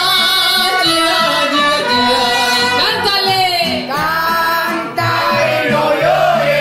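Live mariachi music: a woman sings into a microphone with vibrato on held notes, over the band's accompaniment.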